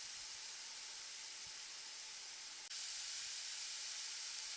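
Toy stove's electronic frying sound effect: a steady sizzling hiss, which steps a little louder just past halfway.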